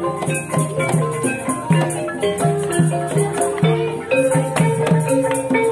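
Live Javanese gamelan ensemble playing the accompaniment for an ebeg dance, with no amplification: pitched metal-keyed notes stepping through a melody over regular kendang drum strokes, and a steady high rattle above.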